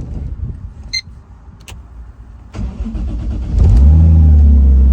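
A door thuds shut and a short electronic beep sounds about a second in. Then the drift car's engine is cranked, catches about three and a half seconds in, and settles into a loud, steady idle.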